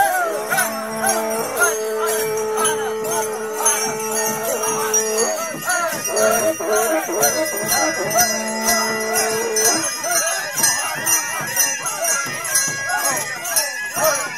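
Small bells being shaken, jingling in a fast, steady rhythm of about four shakes a second. Long held tones sound beneath them through the first two-thirds.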